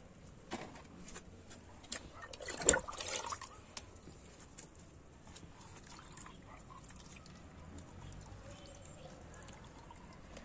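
Water poured in a short splashing burst about two seconds in, with a few scattered light clicks and knocks of handling around it.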